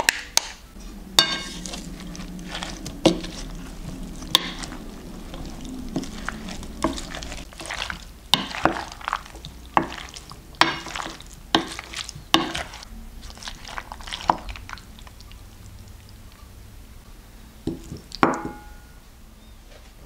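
A utensil stirring and folding mayonnaise-dressed potato salad in a glass bowl, with irregular knocks and clinks against the glass. The knocks come about once or twice a second, then thin out, with one louder scrape near the end.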